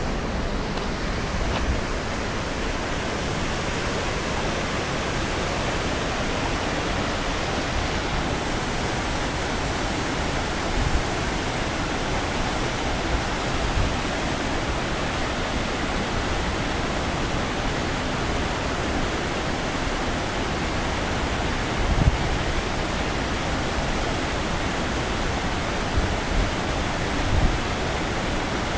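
Waterfall: a steady, even rush of falling water, with a few brief low thumps, the loudest about two-thirds of the way through.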